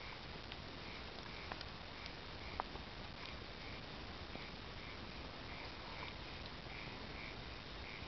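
Wood bonfire crackling, with a few scattered sharp pops over a steady low hiss. A faint short call repeats about twice a second in the background through the second half.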